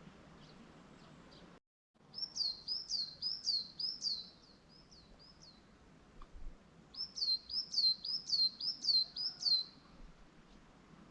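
A songbird singing two quick phrases of high, repeated down-slurred notes, about four or five a second, with a short pause between the phrases. The sound drops out briefly just before the first phrase.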